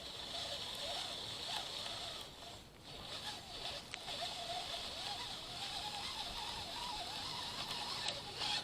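Faint distant engine drone, its pitch wavering slightly, over a steady high hiss of outdoor ambience.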